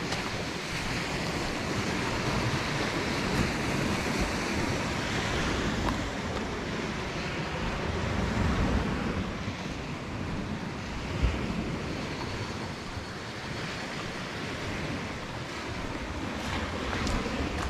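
Wind buffeting the microphone over the wash of small sea waves on the shore, with one short thump about eleven seconds in.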